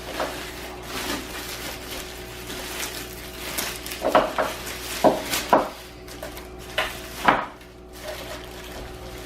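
Handling noise of a blender being unpacked: packaging rustling, with a run of sharp clattering knocks, about six of them between four and seven and a half seconds in.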